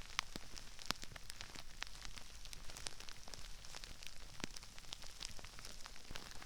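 Crispy rice crackling and popping: a dense, irregular scatter of small sharp crackles and pops, heard through a binaural microphone.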